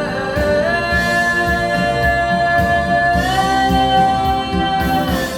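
Music: a guitar holding long notes that slide from one pitch to the next, fading out near the end.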